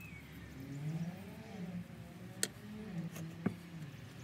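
Two sharp metal clicks about a second apart as a bronze eccentric strap is handled and seated around the eccentric on a steel driving axle, over a faint wavering low-pitched sound.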